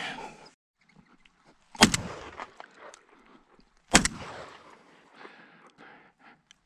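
Two shotgun shots at flying doves, about two seconds apart, each a sharp bang followed by a fading echo.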